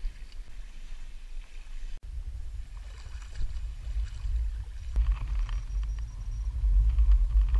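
Low wind rumble on the camera's microphone over water splashing around an inflatable kayak, with a brief sharp dropout about two seconds in and the rumble growing stronger from about five seconds on.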